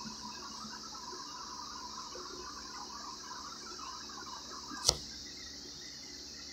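Low, steady background hiss with a single sharp click about five seconds in.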